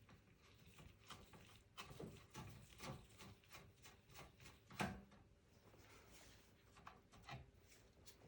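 Faint, irregular clicks and taps of a screwdriver and small metal screws being worked out of a desktop computer's motherboard and chassis, with one louder knock a little before the middle.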